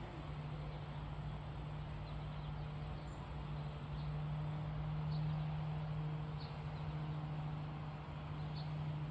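Backyard ambience: a steady low hum, with faint short high chirps every second or two.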